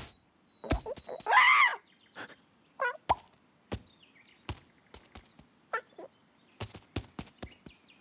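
Cartoon sound effects for an animated ostrich: a scattering of short, sharp taps and clicks with gaps of silence between them, and a few brief squawking cries that rise and fall in pitch. The loudest cry comes about a second and a half in.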